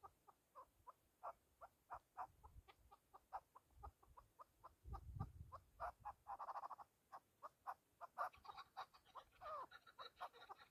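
Chukar partridge calling: a faint run of short clucking notes, about three or four a second, with a few falling notes near the end.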